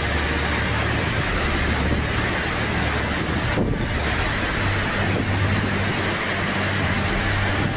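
Steady loud rushing noise over a low steady hum, briefly broken about three and a half seconds in.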